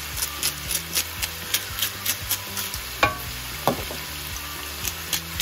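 Beef tongue pieces and onions frying in oil in a nonstick wok: a steady sizzle with sharp crackling pops about three or four times a second. About three seconds in come two brief clinks, just under a second apart.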